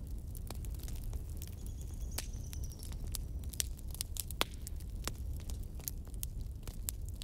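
Fire crackling: irregular sharp pops and snaps, several a second, over a steady low rumble, with a faint high whistle that falls slightly about two seconds in.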